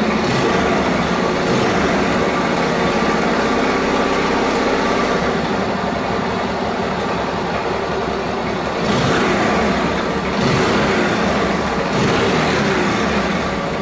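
Honda Super Cub's single-cylinder four-stroke engine running just after starting, with the throttle blipped three times in the second half. It runs without any abnormal noise after a rebuild, which the owner judges problem-free.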